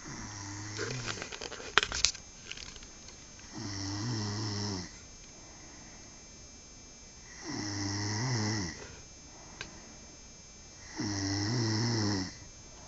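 A sleeping man snoring: four drawn-out snores, each about a second long, coming about every three and a half seconds. A quick burst of sharp clicks about two seconds in is the loudest sound.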